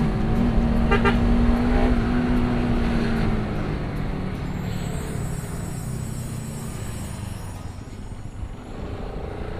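Bajaj Pulsar RS200's single-cylinder engine running steadily under way, heard from the rider's seat, with a short horn-like toot about a second in. The engine note drops after about three and a half seconds as the bike eases off.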